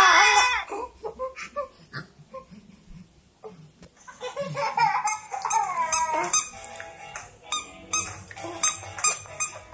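Music with cartoon-like sound effects, taps and short sung or squeaky phrases, playing faintly from a phone's small speaker. A loud wavering crying voice trails off in the first half second.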